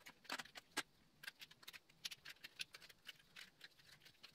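Faint, irregular clicks and ticks, several a second, as a flat steel recoil spring is worked by hand, coil by coil, back into the plastic pulley of a snowblower's pull-start.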